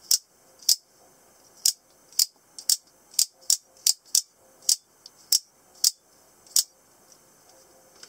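Out-the-front automatic knife snapping its spring-driven blade out and back in over and over: about thirteen sharp metallic clicks at uneven intervals over six or so seconds.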